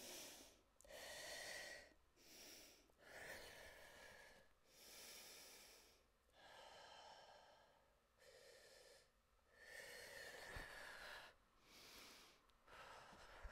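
A woman breathing audibly, slow deliberate breaths in and out, about ten of them, each lasting around a second with short pauses between. A single faint tap comes about ten and a half seconds in.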